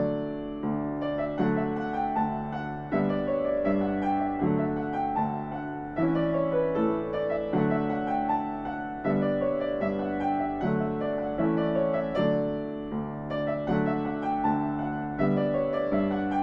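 Background piano music: a slow, gentle piece of struck chords and melody notes, with a new chord about every second and a half.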